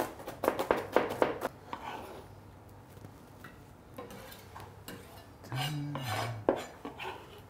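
Chef's knife chopping red onion finely on a cutting board in a quick run of sharp taps, then scattered knocks and scraping as the chopped onion is pushed off the blade into a clay tagine.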